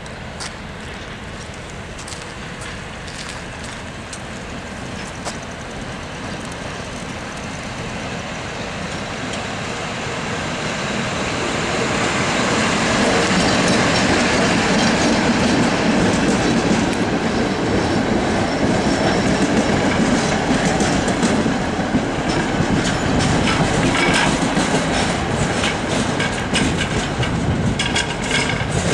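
A train running along the rails close by, its wheels clattering over the rail joints. It grows steadily louder over the first dozen seconds and then stays loud, with a run of sharp wheel clicks near the end.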